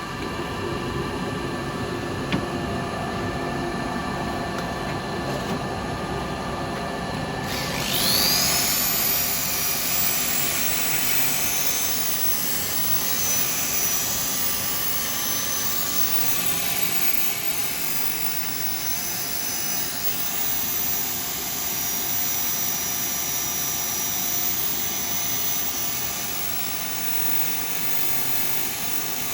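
Wood lathe running steadily with an oak bowl spinning on it. About eight seconds in, a second high-speed motor spins up with a rising whine and a steady rushing noise joins, as the bowl is sanded with 180-grit abrasive.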